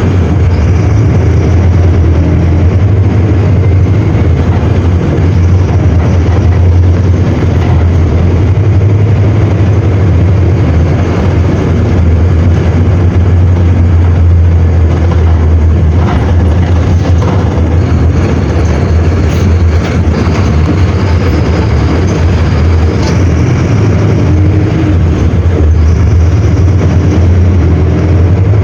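Mercedes-Benz OM-924 LA four-cylinder inline diesel engine of a bus running, with a steady low drone.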